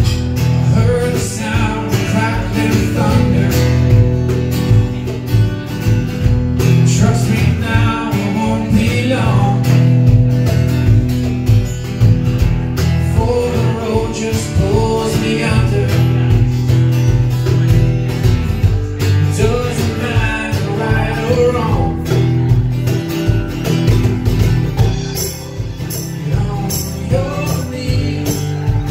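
Live acoustic folk-rock song: a strummed acoustic guitar with drums keeping the beat and a man singing over it.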